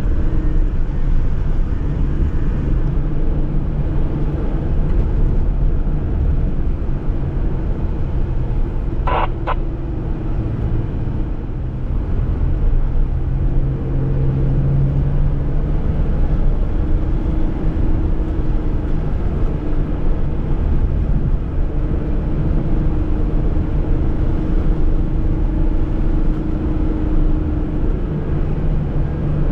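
A Jeep driving, with its engine and road noise making a steady low rumble and an engine hum that rises and falls a little in pitch. A short, high squeak sounds once about nine seconds in.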